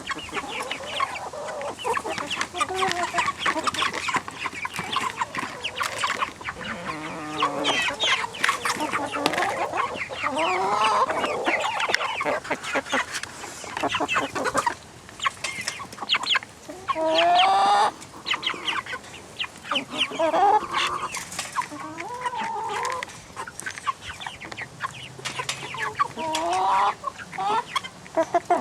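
A flock of six-week-old Cornish Cross broiler chickens calling: overlapping short clucks and peeping calls that rise and fall in pitch, with frequent short clicks among them.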